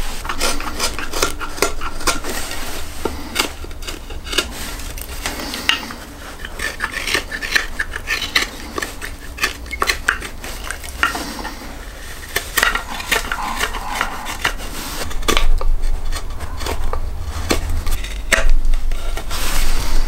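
Carving knife whittling the wooden palm swell of an axe handle: a run of short, irregular slicing and scraping strokes of the steel blade on the wood.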